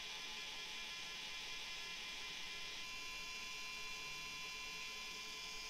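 Small cordless electric screwdriver running steadily with a motor whir as it drives a long screw into the carbon-fibre drone frame; its tone dulls slightly about three seconds in.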